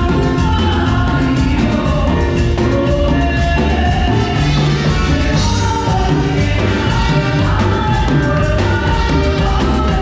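Live band playing a song with a sung vocal over a steady drum beat, recorded through a camera's microphone.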